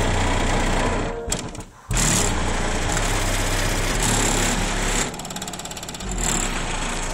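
DB Drive Platinum subwoofers in a truck cab playing heavy bass-line music loud enough to overload the phone's microphone into a harsh, buzzing distortion. The sound drops out briefly about a second and a half in, then returns just as loud.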